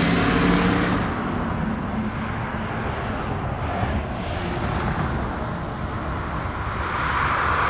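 Jet airliner engines rumbling as an aircraft passes. A few steady engine tones fade about a second in, and the noise builds again near the end.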